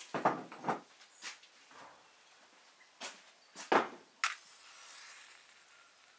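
Handling clatter at a table: a string of short knocks and clinks as dried meat is set out on a metal tray and a stainless steel pot is set down, the loudest knock about two thirds of the way through.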